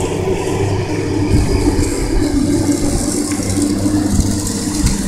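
Kick scooter wheels rolling on the concrete of a skate bowl: a steady rumble with a constant low hum.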